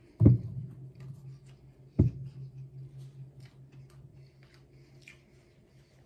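Two dull thumps about a second and a half apart, followed by a low steady hum that fades, with faint soft clicks and squishes of chewing from someone eating a hamburger.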